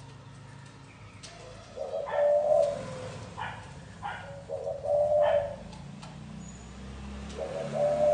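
Spotted dove cooing: three low, hooting coo phrases about two and a half to three seconds apart, with short higher notes between them.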